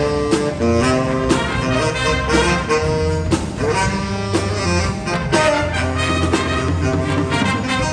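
Jazz ensemble playing a swing chart: saxophones and brass hold chords over a walking bass line, with drum kit strokes throughout.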